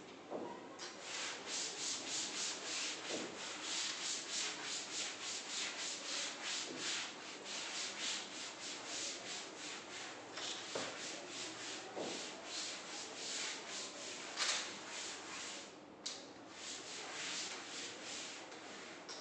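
Board duster rubbed quickly back and forth over a green chalkboard, wiping off chalk writing: a dry scrubbing hiss in rapid repeated strokes, with a short pause near the end before it resumes.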